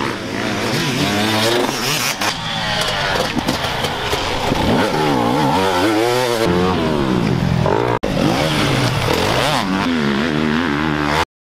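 Off-road motorcycle engines revving as dirt bikes climb past on a motocross track, the pitch repeatedly climbing and dropping with throttle and gear changes. More than one bike is running at once. The sound cuts off suddenly near the end.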